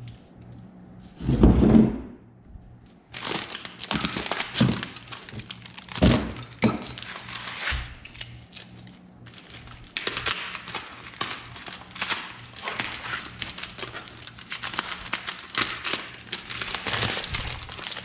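Plastic wrapping and foam packaging crackling and rustling as it is cut and pulled off a prismatic LiFePO4 battery cell, with cardboard being handled. A single heavy thud about a second and a half in.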